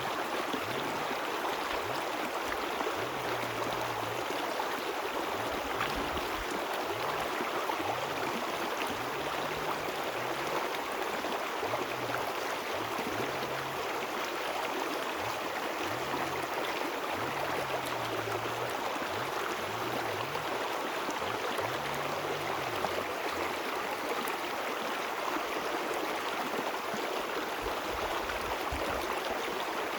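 River water flowing in a steady, even rush. Underneath, a faint low hum moves in steps between a few pitches.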